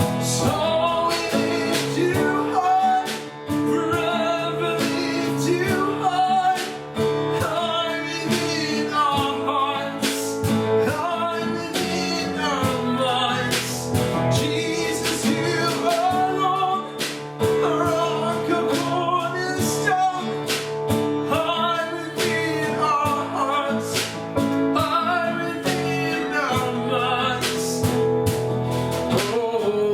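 Praise and worship song: singing over guitar and other accompaniment, with a steady beat.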